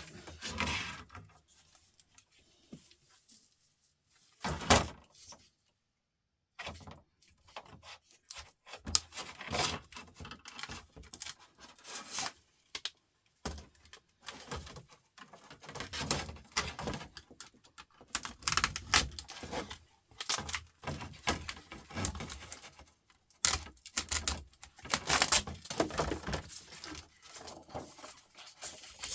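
Small metal and plastic laptop parts clinking and rattling as they are handled and pried apart, with one loud knock about five seconds in and a short pause after it.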